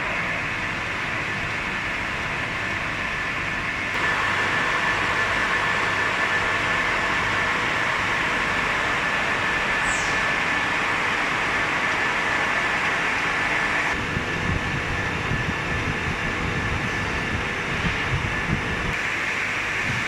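Steady running noise of an EPS foam cutting machine line, a constant mechanical hum with a thin high whine. The sound changes abruptly about four seconds in, and a heavier low rumble comes in later for several seconds.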